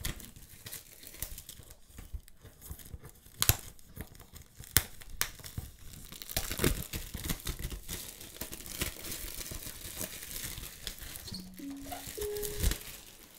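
Cardboard product box being pried open and its inner tray slid out, then plastic wrapping crinkling and tearing as a new keyboard is unwrapped, with scattered sharp clicks and scrapes of handling.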